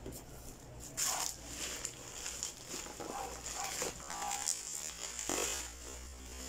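Bubble wrap and plastic packaging crinkling and rustling as it is handled and pulled away from a cardboard box, in irregular bursts, the loudest about a second in. A steady low hum sits underneath.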